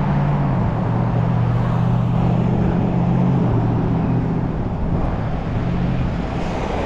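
Road traffic passing on a multi-lane street: cars driving by, with a steady low engine hum that fades about halfway through and briefly comes back.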